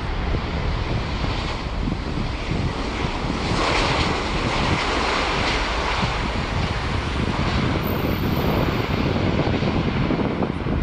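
Engines of an Airbus A350-900 airliner (Rolls-Royce Trent XWB) running as it lands, a loud steady rushing jet noise that swells about four seconds in.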